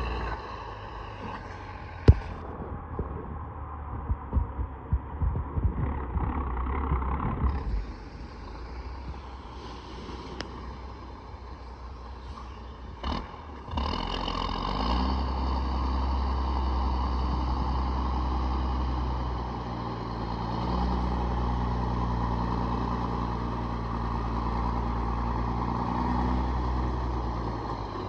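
Diesel truck engine running, with a sharp click about two seconds in and loose rattling clatter a few seconds later. About fourteen seconds in the engine picks up and then runs louder and steady.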